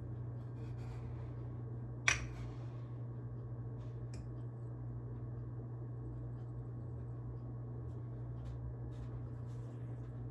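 A steady low hum with one sharp knock about two seconds in and a few faint clicks afterwards.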